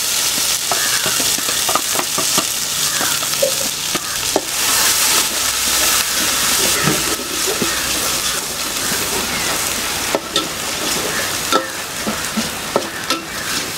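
Ground onion-and-chilli masala paste sizzling in hot coconut oil in a steel pot. A metal spoon scrapes and clicks against the pot as the paste is stirred.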